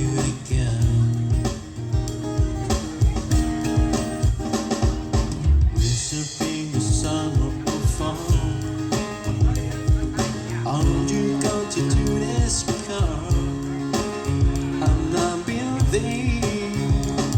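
Live band playing a song: electric guitar, bass and drum kit with a steady beat, and a singer carrying the melody.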